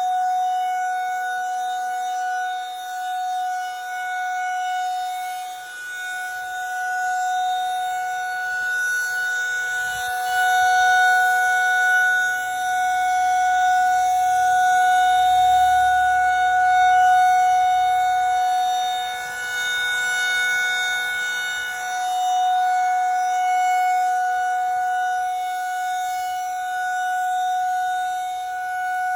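Federal Signal 2001-SRNB rotating outdoor warning siren sounding at full speed: one steady, held pitch that swells and fades every few seconds as the rotating horn sweeps past.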